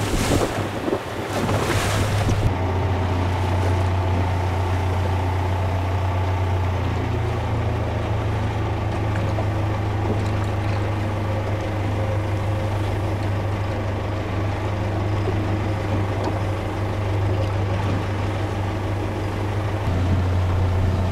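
For the first couple of seconds, wind and waves buffet the microphone. Then a boat engine runs steadily with a low hum, its pitch stepping up slightly about seven seconds in and dropping back near the end.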